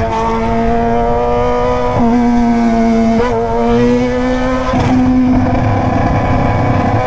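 Yamaha XJ6's inline-four engine through a straight-pipe 3-inch stainless Atalla exhaust, running at high, fairly steady revs on the move. The note climbs slowly and dips briefly a few times.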